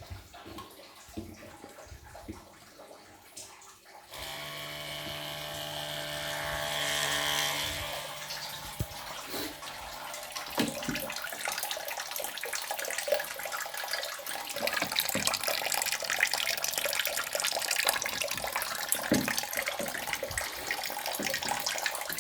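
Electric water pump switched on about four seconds in, its motor running with a steady hum; the pump runs but draws no water, a loss of suction. From about ten seconds in the hum gives way to a steady rushing, water-like noise with scattered clicks.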